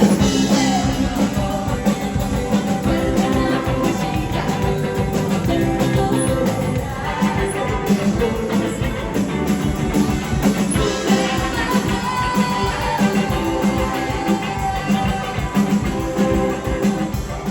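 Live indie rock band playing with electric guitar, drums and a singing voice.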